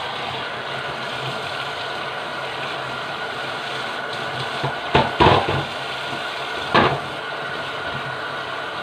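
Kitchen tap water running steadily into a stainless steel sink while a greasy part is scrubbed with a sponge under the stream. A few sharp knocks about five seconds in and another about seven seconds in.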